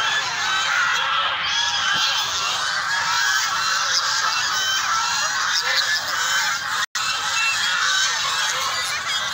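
A large flock of white domestic geese honking, many calls overlapping into a continuous din. The sound drops out for an instant about seven seconds in.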